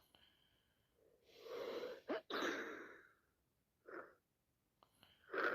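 A woman sneezing with sinusitis: a breath drawn in rising over about a second, then one loud sneeze about two seconds in. Short sniffs follow, near four seconds and again at the end.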